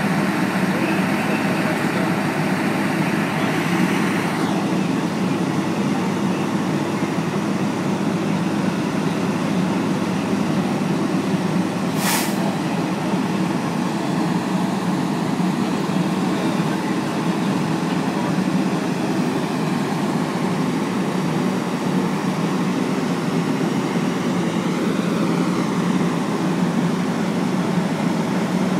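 Steady vehicle rumble with a constant hiss over it, its upper hiss dropping away about four seconds in. A single brief sharp burst of noise cuts through about twelve seconds in.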